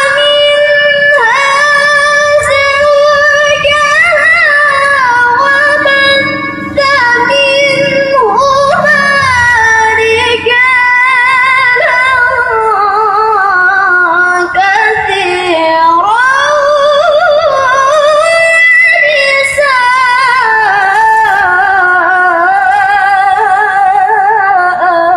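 A girl's high voice reciting the Quran in the melodic qira'ah style, stretching long ornamented phrases with wavering trills. It breaks off briefly for breath twice.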